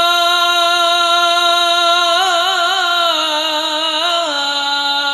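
A solo unaccompanied voice chanting Arabic devotional poetry, holding one long note on the word "yā". About two seconds in it breaks into wavering, ornamented runs of pitch.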